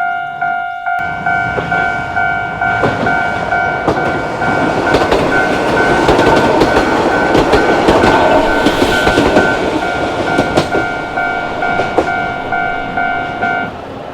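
Level crossing bell ringing steadily at about two strokes a second while a Sangi Railway Hokusei Line train passes over the crossing, its wheels clicking over the rail joints, loudest midway. The bell stops near the end.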